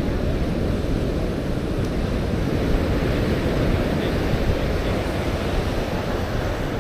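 Steady wash of ocean surf, mixed with wind rumbling on the microphone.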